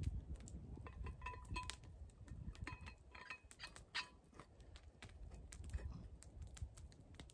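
Faint crackling of a small campfire with scattered clicks, and a few short metallic clinks in the first half as a steel thermos is handled beside it.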